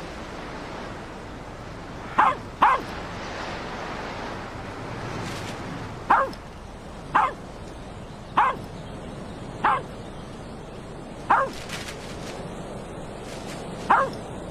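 A dog barking: eight short, sharp barks, two in quick succession about two seconds in, then single barks a second or more apart, over a steady background noise.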